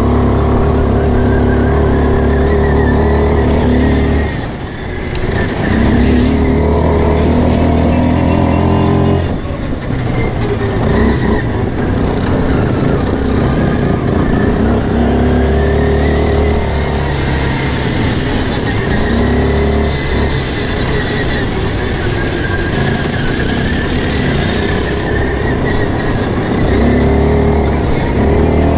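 Quad bike engine running under way, held steady for stretches and rising and falling in pitch as the throttle opens and eases. It drops off briefly about four seconds in.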